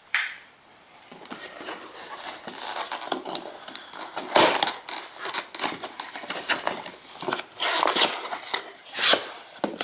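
Long cardboard box being opened by hand: scraping, rustling and tearing of the cardboard end flaps, starting about a second in, with sharper rips about four, eight and nine seconds in.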